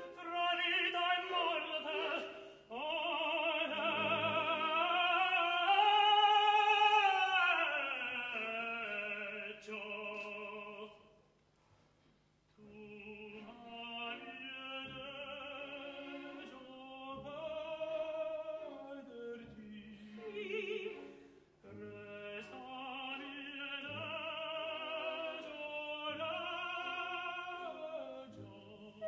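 Operatic singing with wide vibrato and long held notes from a soprano–tenor duet. The tenor is singing near the end, and the singing stops for about a second near the middle.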